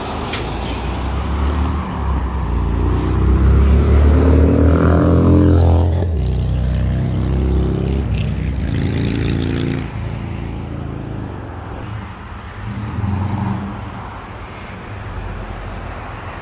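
Road traffic: motor vehicles passing on the street, one engine rising in pitch and loudest about four to six seconds in, with a couple of weaker passes later.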